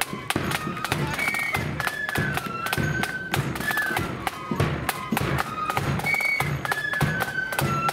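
Blood-and-thunder marching flute band playing: flutes carry a melody of short held notes over busy snare-drum strokes and a pounding bass drum.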